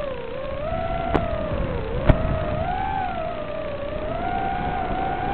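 5-inch FPV quadcopter's brushless motors whining, the pitch rising and falling smoothly with the throttle, with two short sharp clicks about one and two seconds in.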